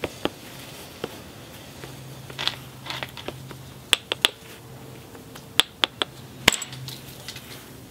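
Copper bopper working the edge of a cherty mudstone biface: a scattered series of sharp clicks and ticks of copper and stone, including a quick pair about four seconds in and the sharpest click about six and a half seconds in.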